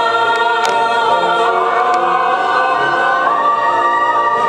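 Stage cast singing together in chorus, holding the long final chord of a musical number; the top note steps up about three seconds in.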